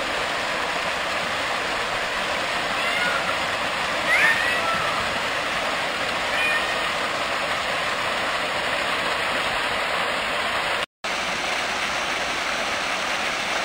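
Steady rush of water, even and unbroken, with a few faint brief high chirps over it. It drops out for an instant near the end.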